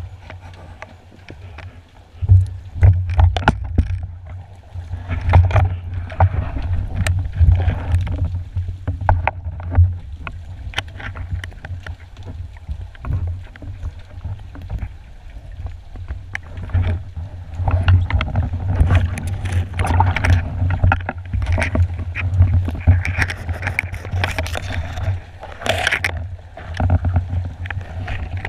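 Muffled underwater noise picked up through a camera's waterproof housing: a low, uneven rumble of moving water, with scattered clicks and knocks throughout.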